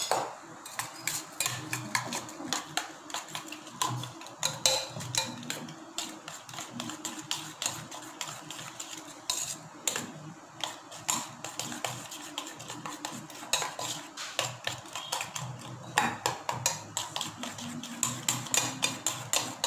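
Steel spoon beating raw eggs with chopped vegetables in a small stainless steel saucepan: quick, irregular clinks and scrapes of metal on metal, several a second.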